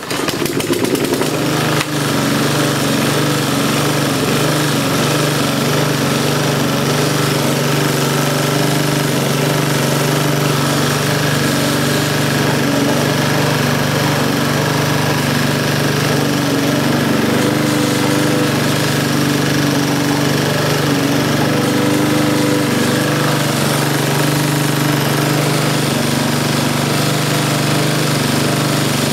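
Sovereign rotary lawnmower's small petrol engine starting and then running steadily at speed, which the owner judges to be running reasonably well.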